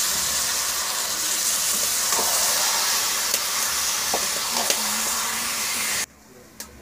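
Marinated chicken sizzling loudly in hot oil in a kadhai, with a few light knocks of the ladle as it is stirred. The sizzle cuts off suddenly about six seconds in.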